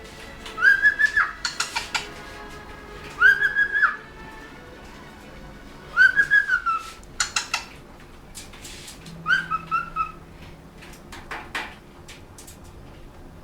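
Cockatiel whistling: four short phrases a few seconds apart, each a clear note that rises, holds and drops away. Sharp clicking noises fall between the phrases.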